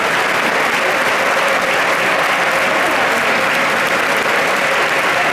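Loud, steady noise of a packed football stadium end: thousands of supporters shouting and singing together, with a faint held tone coming through about a second in.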